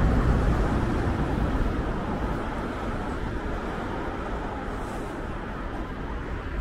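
Road traffic on a city street: a vehicle's rumbling noise, loudest at the start, fading steadily as it draws away.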